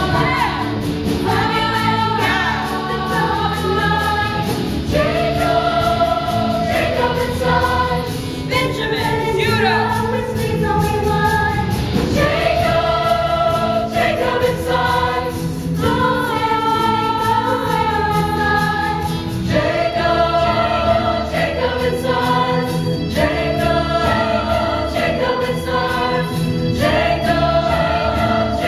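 A large stage-musical cast singing a chorus number together, with sustained held notes over musical accompaniment.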